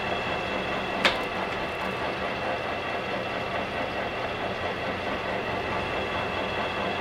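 Metal lathe running steadily with a constant gear whine over its drive noise, set up for single-point thread cutting. One sharp click about a second in.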